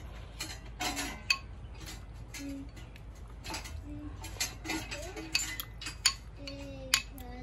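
A ceramic soup spoon clinking and scraping against a ceramic bowl of rice porridge while eating, with three sharp clinks, about a second in and twice near the end.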